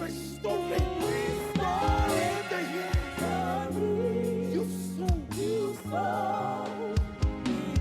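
Live gospel music: a singing voice over a band's sustained chords and bass, with drum thumps every couple of seconds.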